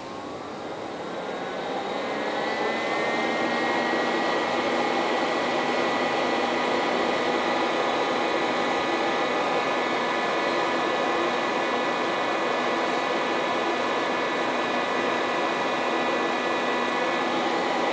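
Fan motor spinning up with a rising whine over the first two to three seconds. It then runs steadily with a whine over a rushing noise, and starts to wind down near the end.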